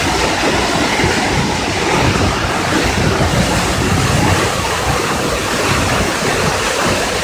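Waterfall's water crashing down, a steady, loud rushing noise.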